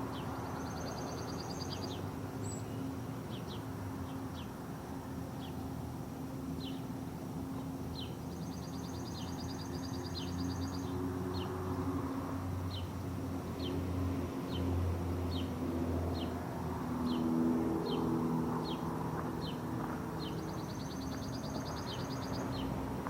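Outdoor ambience: a bird chirping over and over, about once a second, with a high buzzy trill three times, over a steady low hum.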